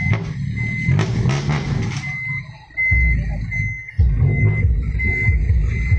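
Sand-laden dump truck's diesel engine running, with a reversing beeper sounding a short high beep about every three-quarters of a second. The engine sags briefly, then revs up sharply about four seconds in, throwing out exhaust smoke.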